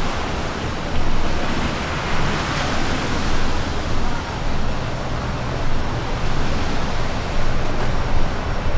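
Steady rush of sea water washing against the waterfront, with wind rumbling on the microphone underneath.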